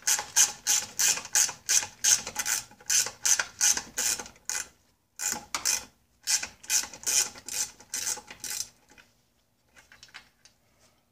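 Ratcheting wrench clicking fast and evenly, about four clicks a second, as a bolt holding an outboard's lower unit is backed out. The clicking pauses briefly about four and a half seconds in, then stops about nine seconds in.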